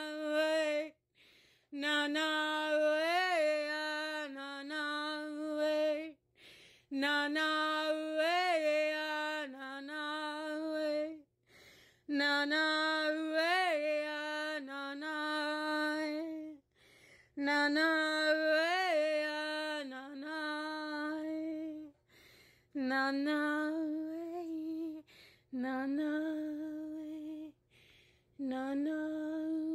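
A woman singing wordless 'light language' tones: long held notes on one steady pitch, each about four seconds, with a small swell up and back in the middle, separated by short breaths.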